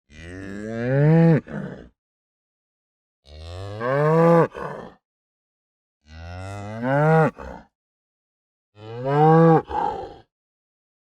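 Cow mooing: four separate moos, one every two and a half to three seconds. Each rises in pitch and breaks off sharply, with dead silence between them.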